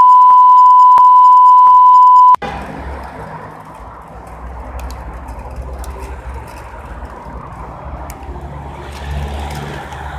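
A loud, steady censor bleep that cuts off sharply about two seconds in, then the wind rush and road noise of a bicycle ride along a street with cars going by.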